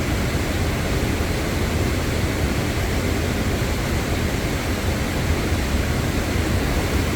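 Steady rushing of a waterfall and river, an even hiss with a strong low rumble.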